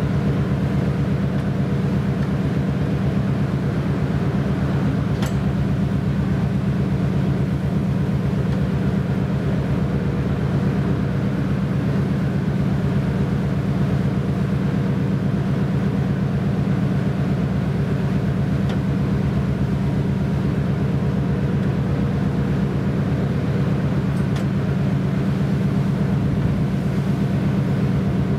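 Steady low drone of a rescue vessel's engines and machinery: a deep, even hum with a fast throb that does not change.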